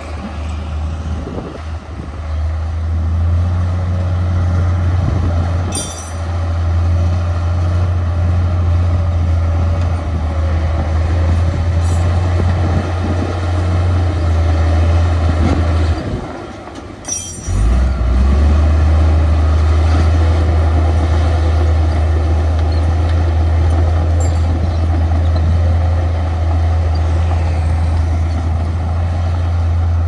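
Heavy diesel earthmoving machinery running close by, a loud deep steady engine drone. The drone dips briefly about five seconds in and again around sixteen to seventeen seconds, each time with a short sharp high-pitched sound.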